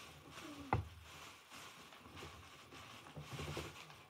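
Rummaging and handling things, with soft rustling and one sharp knock less than a second in.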